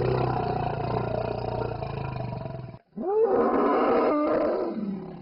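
An Asian elephant calling twice in long, loud calls. The first is already under way and breaks off about three seconds in. The second starts with a rising pitch and fades out near the end.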